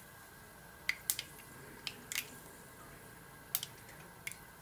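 Mustard seeds popping in hot oil in a frying pan: about half a dozen sharp, irregular pops. The seeds are crackling for a tadka (tempering), the sign that they are ready for the other ingredients.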